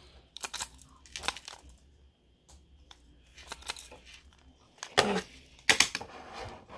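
Hard plastic Beyblade launcher weight damper handled close to the microphone: scattered clicks and light rustling, then two louder knocks about five seconds in.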